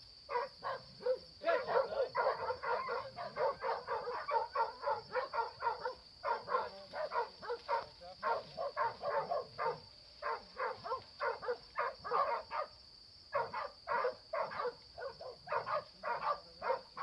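Hog-hunting dog barking fast and repeatedly, about four barks a second in long runs, with short breaks about six and thirteen seconds in.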